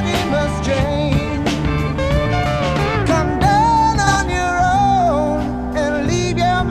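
Background song with a sung melody over guitar and a steady beat.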